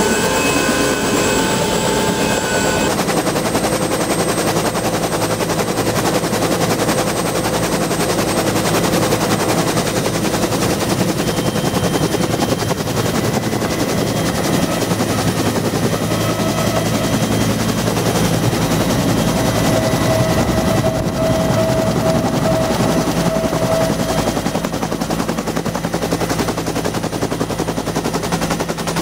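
UH-1B Huey helicopter running, heard from inside the cabin. The two-bladed main rotor makes a fast, steady chopping beat over the whine of the turbine.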